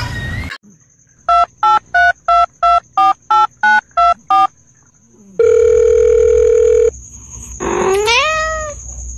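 Ten touch-tone phone keypad beeps in quick succession, about three a second, then a steady phone tone for about a second and a half. Near the end a cat gives one meow that rises and then falls.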